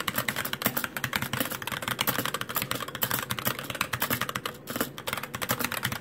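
Fast touch typing on a custom GH60 mechanical keyboard with light 35 g Gateron Clear linear switches: a rapid, dense run of key clacks, with a brief pause a little past halfway.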